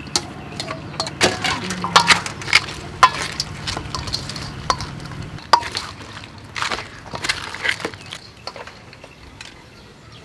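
Raw blue crab and sliced bitter gourd being tossed together in a stainless steel bowl by hand and spoon: irregular clinks and knocks of shell and spoon against the metal, thinning out near the end.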